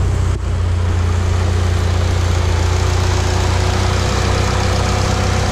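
Turbocharged car engine idling steadily: a deep, even running note with no revving.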